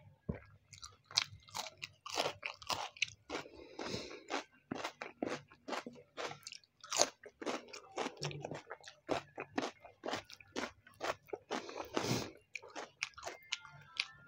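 Close-miked mouth sounds of someone chewing chicken biryani eaten by hand, with crunching from a raw onion slice, as a rapid irregular run of short crunches and smacks.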